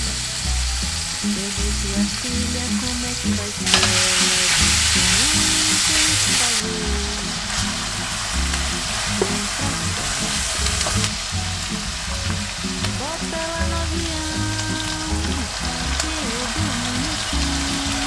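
Mixed ground beef and pork frying with a steady sizzle in a stainless steel frying pan, stirred with a spatula. The sizzle grows louder about four seconds in for some three seconds, then settles back.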